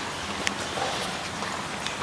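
Steady background noise of a large hall, with one sharp click about half a second in and a faint distant voice just after it.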